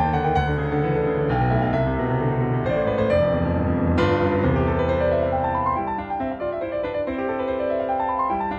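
Background piano music, with struck notes and rising runs.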